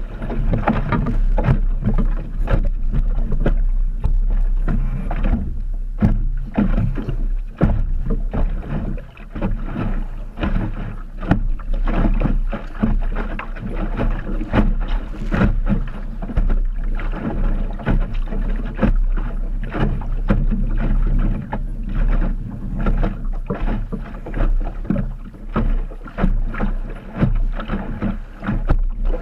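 Choppy water slapping and splashing against the hull of an Optimist sailing dinghy under way: a dense run of irregular slaps over a steady low rumble.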